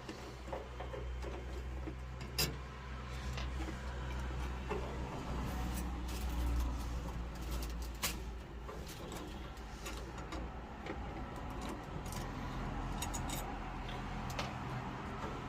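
A few small metallic clicks as screws and parts are taken out of a boiler's diaphragm housing, over a steady low hum.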